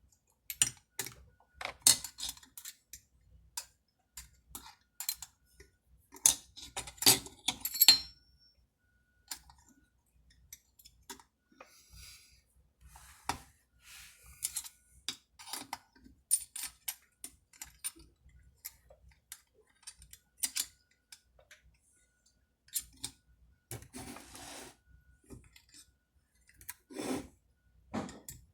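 Hand tools and small metal parts clicking and clinking at irregular intervals while a chainsaw's cylinder bolts are tightened during reassembly, with a few louder clusters of rattling and handling noise.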